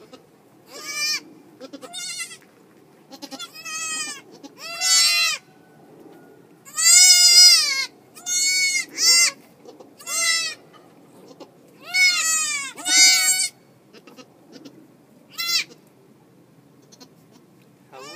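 Newborn goat kids bleating: about a dozen short, high-pitched cries, each rising and falling in pitch, coming in quick succession with the loudest one about halfway through.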